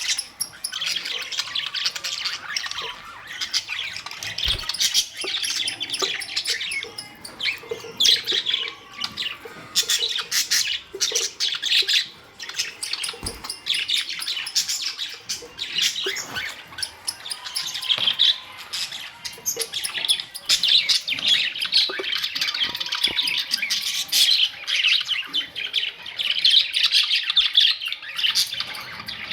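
Budgerigars chirping and squawking continuously, a dense run of rapid, short, high calls from several birds.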